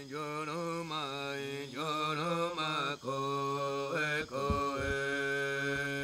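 Chanting music: a sung line with sliding notes over a steady low drone, ending on a long held note.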